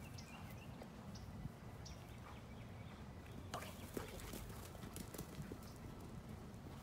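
Low wind rumble on the microphone with scattered faint thuds and clicks, the loudest a little past halfway through, as a dog sprints away across the grass.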